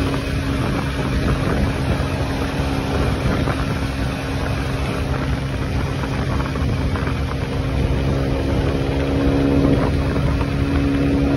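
Motorcycle engine running steadily at cruising speed, a constant hum under a steady rush of wind and road noise.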